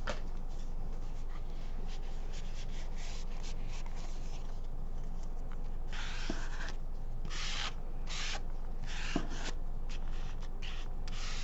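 Hands rubbing and smoothing paper photo-transfer prints on fabric and a plastic mat: a series of short rubbing strokes from about halfway through, with a light knock or two among them.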